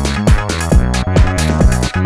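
Background electronic dance music with a steady kick-drum beat, about two beats a second, under sustained synth chords.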